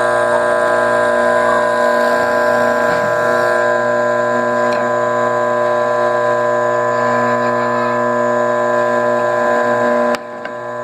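Bench drill press motor running, a steady whine with hum. Near the end there is a sharp click and the level suddenly drops.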